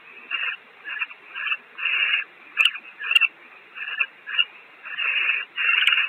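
Barn owls giving a rapid series of harsh hissing calls, about two a second, with a few sharp clicks among them. These are the hissing begging calls barn owls make when prey is brought to the nest.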